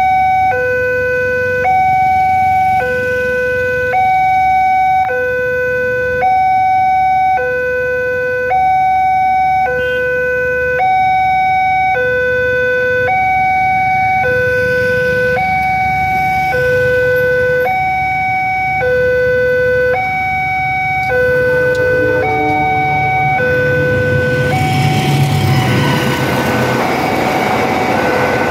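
Electronic level-crossing warning alarm sounding two tones, low and higher, alternating about once a second. In the last few seconds a train passes through the crossing, and its rush of noise and rumble rises over the alarm.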